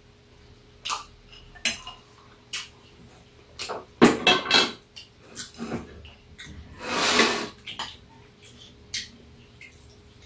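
Metal chopsticks and a stainless-steel bowl clinking and clattering on a metal tray, in scattered knocks that are busiest about four seconds in. A brief crinkle of aluminium foil comes about seven seconds in, as food is picked out of it.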